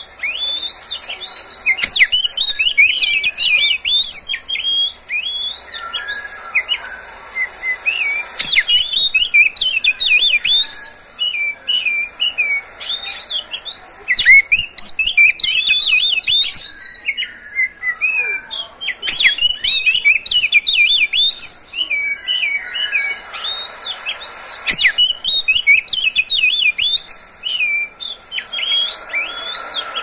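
Male oriental magpie-robin (kacer) singing a rapid, varied song of short sweeping notes, pausing briefly a few times.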